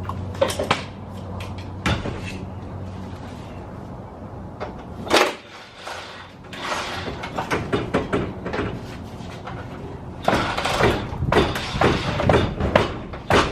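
Repeated metal clanks and knocks from hand tools and car parts during engine removal, starting as scattered single knocks and turning into a busy run of clattering over the second half. A low steady hum runs underneath and stops about three seconds in.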